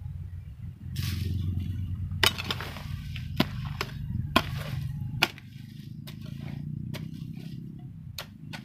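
A hoe chopping into a heap of soil and debris, about a dozen sharp strikes, roughly one or two a second. The strikes start about two seconds in.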